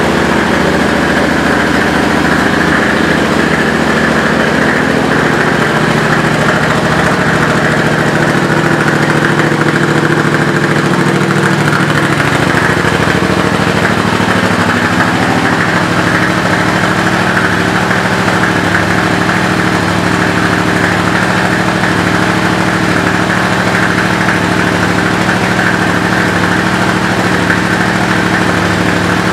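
2017 Yamaha FZ-07's 689 cc parallel-twin engine idling steadily.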